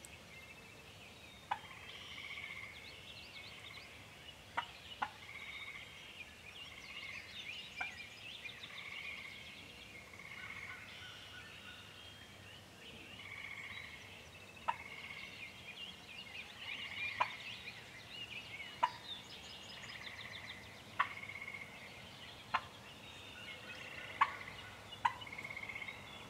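Wild turkey gobblers gobbling in the distance, the calls coming again and again every few seconds, over a dawn chorus of songbirds. Sharp single call notes cut in now and then and stand out as the loudest sounds.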